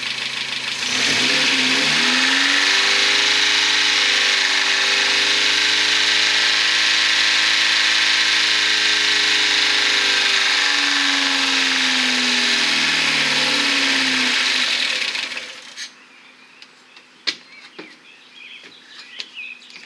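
Renault Clio 1.2-litre four-cylinder engine, running with no oil and no coolant, revved hard and held at high revs with a harsh, screaming note whose pitch sags and climbs slowly. It cuts off suddenly about fifteen seconds in, leaving a few faint clicks.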